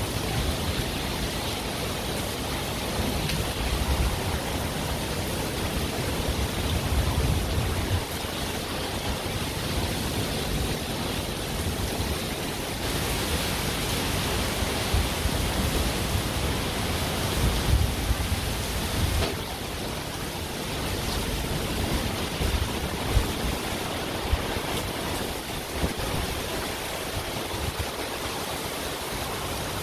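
Heavy monsoon-type downpour hissing steadily, with uneven low rumbling surges now and then; the rain grows a little heavier in the middle.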